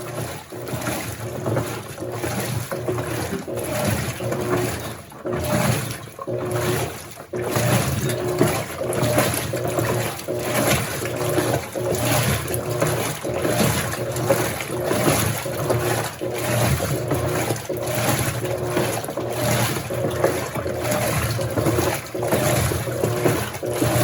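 Electrolux LAC16 16 kg washing machine at the rinse stage just after its spin: water running into the tub and sloshing, with irregular surges about every second.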